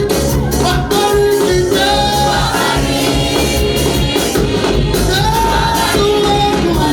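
Gospel praise music: voices singing a melody together over a band with bass and percussion.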